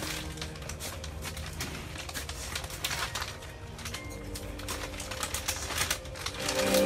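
Plastic potato-chip bag crinkling and chips being crunched, a rapid irregular crackle of small clicks, over quiet background music.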